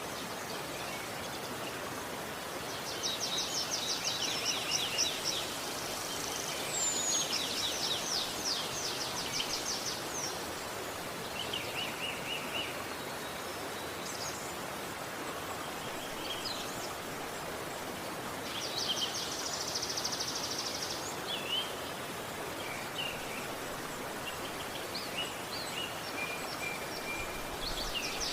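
Steady rushing of river water, with birds singing over it: several high, rapid trilled songs a few seconds long and scattered short chirps between them.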